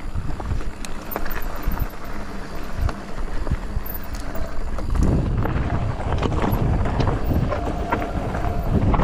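Polygon Siskiu T8 full-suspension mountain bike riding downhill over rough, rocky trail: wind buffets the microphone while the tyres crunch over gravel and rock, with many sharp clicks and knocks from the bike rattling over the bumps. It gets rougher and louder about five seconds in.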